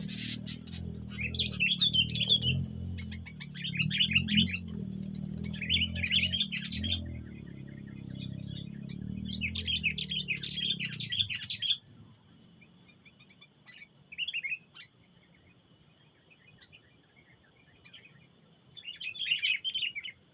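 A small bird chirping in short, rapid chattering bursts, about six of them with pauses between. Under the first half a low steady hum runs, then cuts off suddenly about twelve seconds in.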